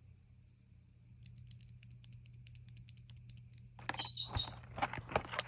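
Durock Koala 67 g tactile mechanical keyboard switch pressed over and over: a quick run of faint clicks from about a second in. Near the end, louder rustling handling noise.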